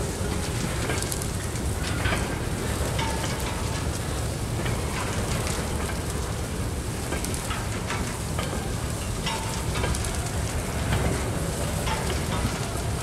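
Empty covered hopper cars rolling slowly past on the rails: a steady low rumble from the wheels, with constant clicking and rattling and a few brief squeals.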